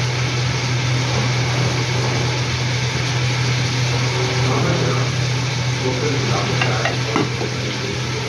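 Food sizzling in hot oil in a pot while being stirred, with a few short utensil clicks near the end, over a steady low hum.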